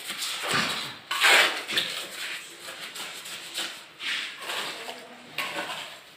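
Ceramic toilet bowl being handled and shifted on a concrete floor while it is fitted over the drain pipe: a string of short, irregular scrapes and knocks, the sharpest about a second in.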